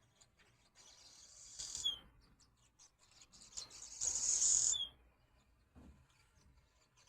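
Swallows twittering: two bouts of chatter, each building to a harsh buzzy trill that ends in a short downward note, the second bout the louder.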